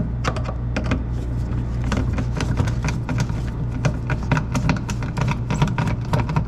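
Screwdriver working out the single centre screw of a refrigerator control panel: a run of quick, irregular clicks and ticks over a steady low hum.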